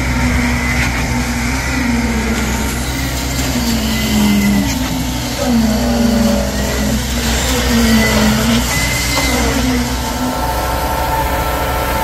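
Diesel engine of a truck-mounted concrete pump running hard while pumping concrete, a steady drone whose pitch dips and rises in short swells about once a second.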